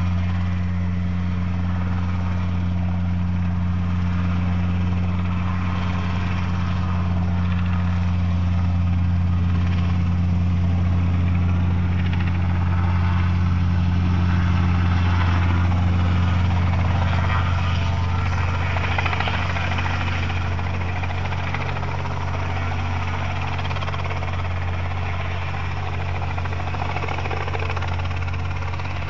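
Aircraft engine running steadily, a loud, even low drone that swells slightly about halfway through.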